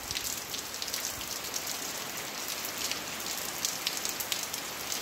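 Steady rain falling: an even hiss with many small ticks of individual drops striking close by.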